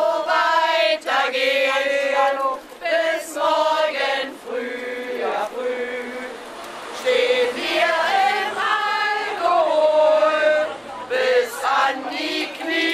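A small group of voices singing a song together, with long held notes and short breaks between phrases.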